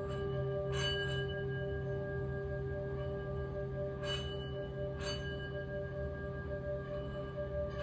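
Singing bowl ringing on with several steady, overlapping tones and a low hum beneath them. Soft brief noises come over it about a second in and twice around four to five seconds in.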